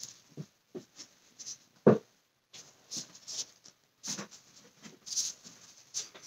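Scattered soft rustles and light knocks, with one sharper knock about two seconds in.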